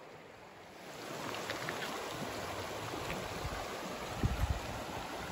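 River water flowing and rippling in the shallows, a steady rushing that comes up about a second in, with a few brief low bumps a little past four seconds in.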